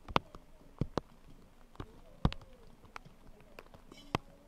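Irregular sharp clicks and knocks, about eight in all, over faint distant voices.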